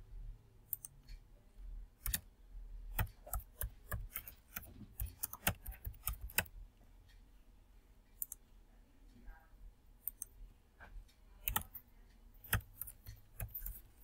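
Computer keyboard typing and mouse clicks, in uneven clusters of sharp clicks, with a sparser stretch in the middle.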